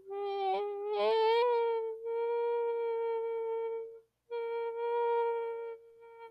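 A person's voice making a goofy hummed tone: a wavering note for about two seconds, then two long, steady held notes at the same pitch, broken by a short pause about four seconds in.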